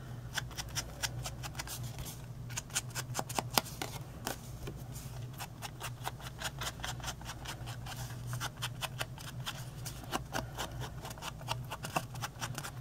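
Foam-pad ink blending tool dabbed and swiped repeatedly along the edges of a cardstock tag, a rapid, irregular run of soft scratchy taps over a low steady hum.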